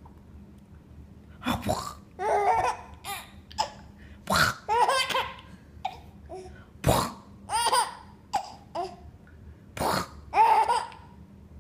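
A baby laughing in repeated bursts, one about every two to three seconds, each beginning with a short sharp sound.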